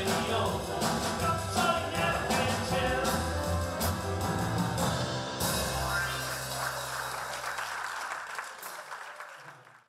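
Live band of grand piano, double bass and drum kit playing the closing bars of a song, ending on a held final chord about five seconds in. Applause then rises while the whole sound fades away.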